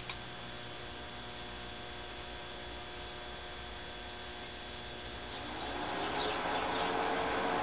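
Steady electrical mains hum with a single click at the start. About five and a half seconds in, a louder rushing noise comes in, with a tone that rises in pitch and then holds steady.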